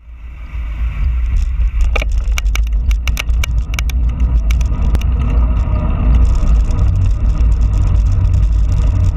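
Wind buffeting the microphone of a camera on a moving bicycle, a loud, steady low rumble, with a run of sharp clicks and rattles from about two to five seconds in.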